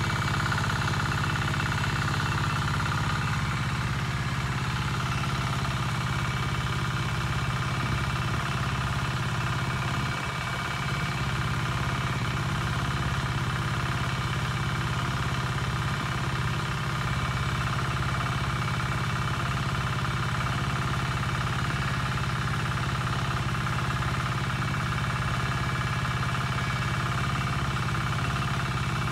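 A small engine running steadily at one constant speed, a low, even drone that never changes pitch.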